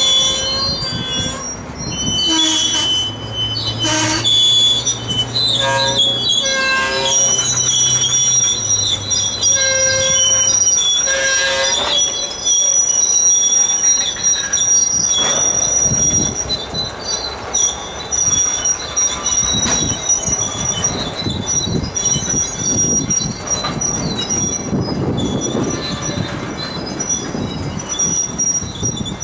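Freight train of tank cars and boxcars rolling past, the wheels squealing in several steady high-pitched tones over a rumble of wheels on rail. Repeated clunks sound in the first half, with a low drone from about two to ten seconds in.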